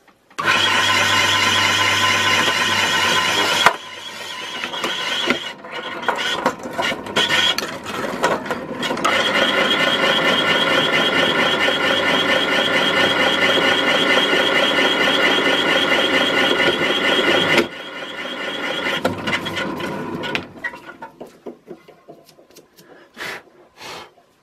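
Bench drill running and its bit squealing as it bores through a metal brush-plate piece from a DC motor. The cutting is loudest in a spell of a few seconds at the start and a longer one in the middle, with quieter, uneven running in between; the drill stops about three-quarters of the way through, leaving a few light clicks.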